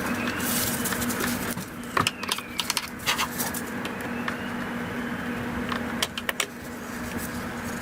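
Flathead screwdriver working the plastic clip of a mass airflow sensor connector to unclip it: irregular sharp clicks and scrapes in clusters, about two seconds in and again about six seconds in, over a steady low hum.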